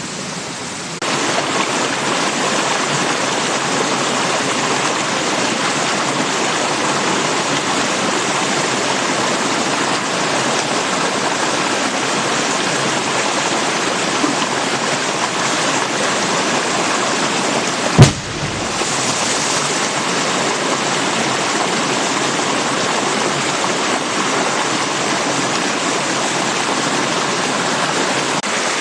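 Steady rush of a stream, getting louder about a second in, with a single very loud, sharp bang a little past the middle.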